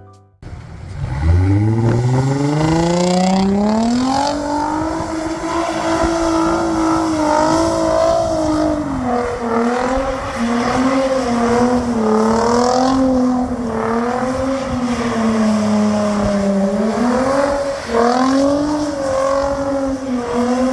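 Nissan 350Z's V6 engine through a dual Tomei exhaust, revving up steeply about a second in and then held at high revs, the pitch rising and dipping a little, as the car is driven.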